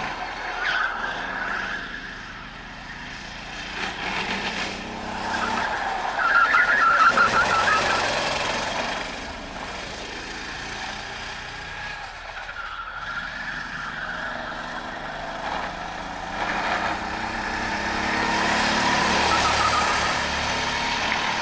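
Sodi RT8 rental kart engines on track, their pitch rising and falling as the karts accelerate and brake through the corners. It is loudest about six to eight seconds in and swells again near the end as karts pass close by.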